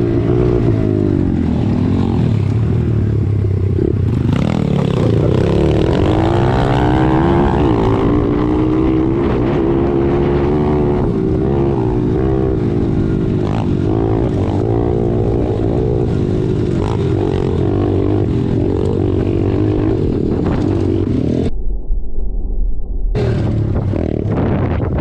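Pit bike engines running while riding, the engine note rising and falling as the throttle is opened and closed.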